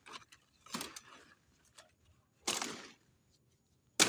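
Machete (cutlass) chopping into a soft, wet plantain stem: three sharp blows roughly a second and a half apart, each a short crack that dies away. The cutlass is blunt.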